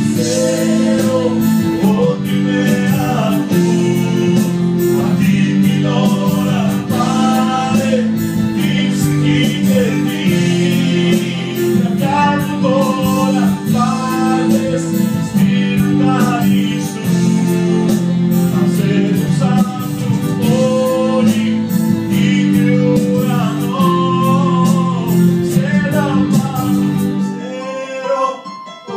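A Greek song: singing over a full instrumental backing. Near the end the low accompaniment drops out and the music thins.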